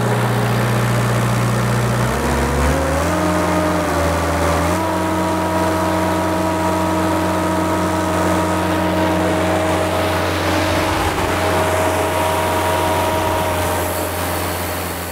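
Diesel engine of a truck-mounted sealcoat spray unit idling, then throttled up in a few steps about two to five seconds in, and running steady at the higher speed.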